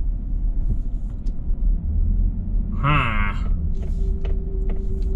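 Low steady rumble of engine and road noise inside a pickup truck's cab as it drives slowly while towing a travel trailer. A brief vocal sound about three seconds in, and a faint steady tone joins about a second later.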